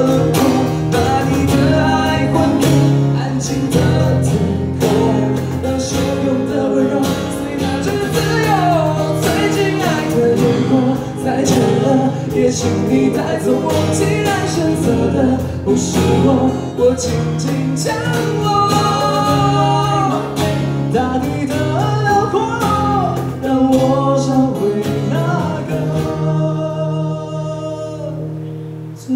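Live acoustic band playing a ballad: strummed acoustic guitars with a cajon keeping the beat and voices singing a melody. Near the end the singing thins out and the guitars carry on more quietly.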